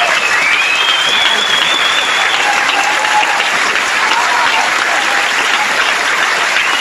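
Theatre audience applauding loudly and steadily at a curtain call, with a few high, held whistles over the clapping.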